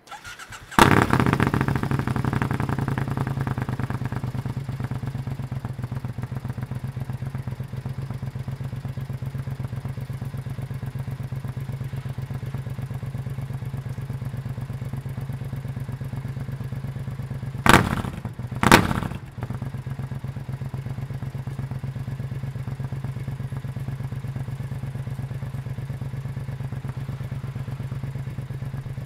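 Triumph Scrambler 900 parallel-twin engine on an Arrow exhaust with the baffle removed, started from cold. A brief crank, then it catches under a second in and settles into a loud, steady idle. Two short, sharp bursts about a second apart come a little past halfway.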